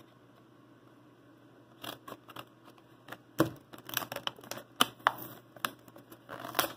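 A cardboard-and-plastic blister pack being cut open with scissors and pulled apart: irregular snips, clicks and crinkles of card and plastic, beginning about two seconds in.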